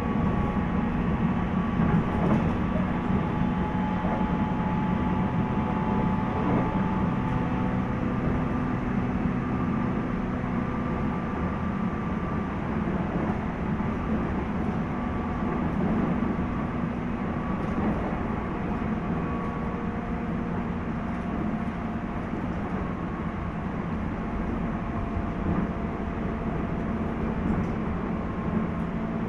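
Running sound heard inside a JR East 719 series electric multiple unit car, KuMoHa 719-1, on the move: a steady low rumble of wheels on rail, with faint whining tones that come and go. The recordist suspects this car of making an unusual noise.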